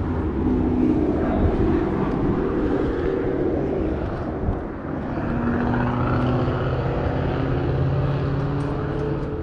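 A steady engine drone with a low hum, its pitch dropping to a lower, steadier note about five seconds in.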